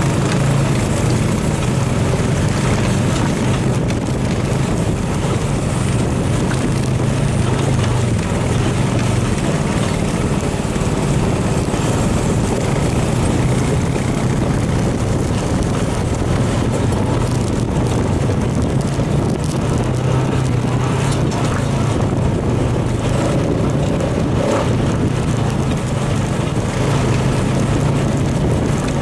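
Honda FourTrax Foreman Rubicon 4x4 ATV's single-cylinder engine running steadily as the quad rides a rocky dirt trail, with a constant rush of noise over the engine hum.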